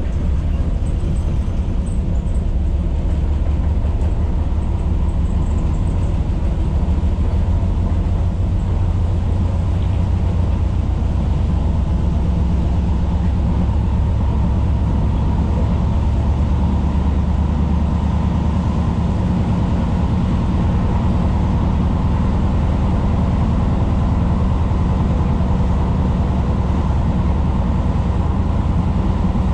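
Interior running noise of a Tyne & Wear Metrocar at speed: a steady low rumble of wheels on rails, with a faint steady hum above it.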